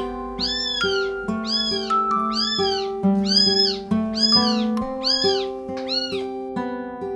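Tiny kitten meowing over and over, roughly one to two high cries a second, each rising and falling in pitch, stopping about six seconds in. Plucked-guitar background music plays underneath.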